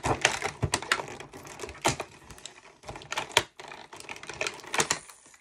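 Irregular clicks, taps and rustles of cardboard and thin plastic as a door of a cardboard advent calendar is pushed open and the plastic insert behind it is handled.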